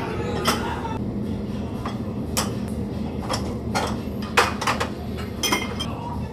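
Small ceramic bowls clinking and knocking as they are handled and set out on trays, a scattering of separate sharp clinks over a steady low background hum.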